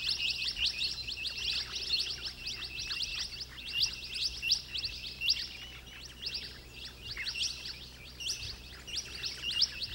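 Many small birds chattering together: rapid high chirps in close runs with short gaps between them.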